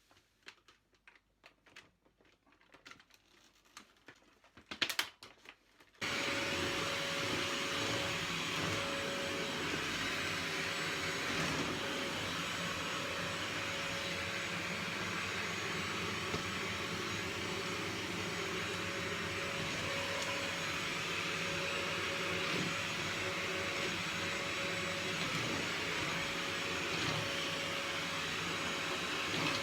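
A few faint handling clicks and a louder click, then a vacuum cleaner switches on about six seconds in and runs steadily with a constant whine.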